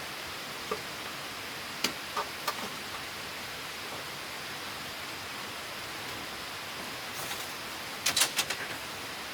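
A steady, even rushing hiss with a few scattered light clicks and knocks, several in quick succession near the end.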